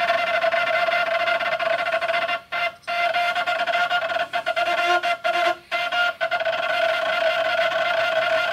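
CNC router axis servo motor singing with a steady high-pitched tone and overtones while a hand forces its belt pulley against the servo's position hold. The tone cuts out briefly several times between about two and six seconds in. This is the sound of a servo tuned too stiff.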